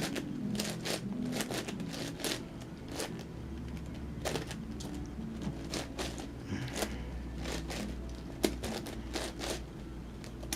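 Plastic layers of an 11x11x11 Rubik's cube clicking and scraping as they are turned, in irregular quick clacks.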